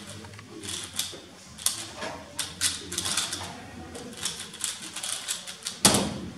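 Fast, irregular clicking and clacking of a 3x3 speedcube being turned at speed during a timed solve. Just before the end comes one louder slap as the cube is set down and the hands hit the stackmat timer to stop it.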